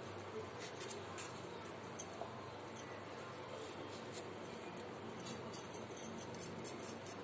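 Kitchen knife cutting the seedy pulp out of tomato wedges: faint scraping with a few light, sharp ticks scattered through, over a steady low hiss.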